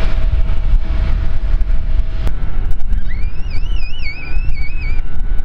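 Airport apron noise: a steady low rumble with wind buffeting the microphone. A little after the midpoint, a high warbling tone wavers up and down for about two seconds.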